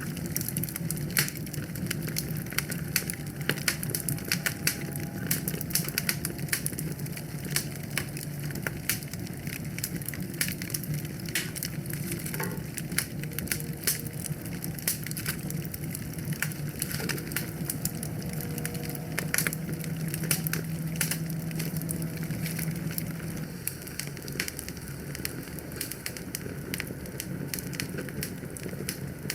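Wood fire burning in a fireplace, crackling and popping with many irregular sharp snaps over a steady low rumble of the flames.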